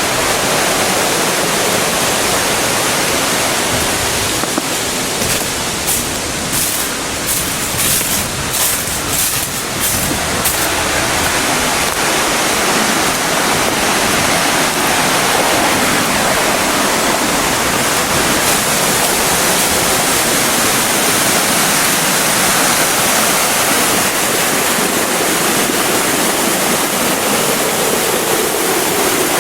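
Waterfall: a loud, steady rush of falling water. A few short scratchy sounds come through between about five and ten seconds in.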